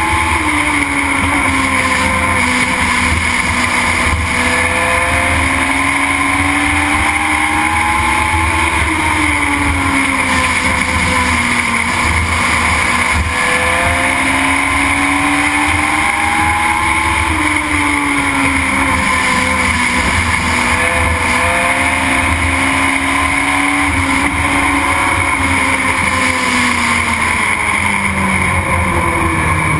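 Onboard sound of a Legend race car's Yamaha motorcycle engine at racing speed, its pitch climbing down each straight and falling off into each turn, about four times in a row, over steady road and wind noise. Near the end the engine note drops lower.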